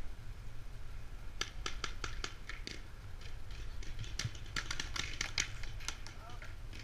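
Paintball markers firing in rapid, irregular strings of sharp pops, starting about a second and a half in and thickest between about four and five and a half seconds, over a low steady rumble.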